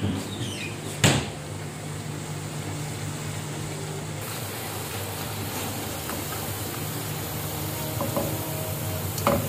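Pakoras deep-frying in hot oil, a steady sizzle, with a low steady hum underneath. A single sharp knock about a second in, and a few light clinks near the end as a wire skimmer works in the pan.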